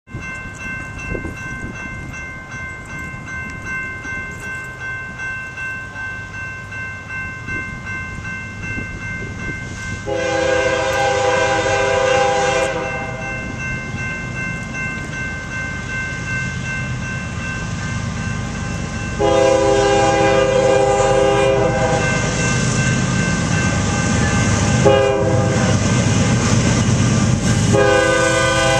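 Grade-crossing warning bell ringing steadily as a BNSF freight train approaches. The diesel locomotives' horn then sounds the standard grade-crossing signal: two long blasts, a short one, and a final long blast starting near the end. A low locomotive rumble grows louder throughout.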